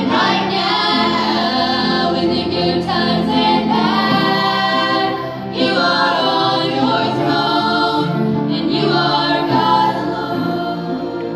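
Small mixed group of male and female voices singing a church song in harmony through microphones and a PA speaker, with piano accompaniment. The singing dips briefly about halfway through, then carries on.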